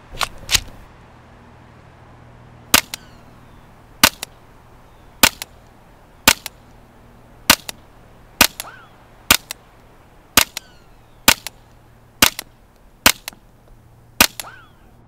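Suppressed .22 LR semi-automatic fire from a Calico M-100 rifle with a SilencerCo Sparrow 22 suppressor: about fourteen sharp, subdued cracks, two in quick succession at the start and then roughly one a second. Each shot is followed closely by a fainter second crack.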